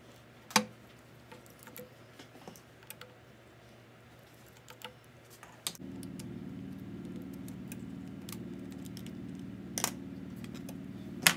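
Scattered light clicks and taps from hands and a razor knife working on a MacBook Air's keyboard deck and display frame while the LCD adhesive is cut, with a few sharper clicks about half a second in and near the end. About six seconds in a steady low hum starts underneath.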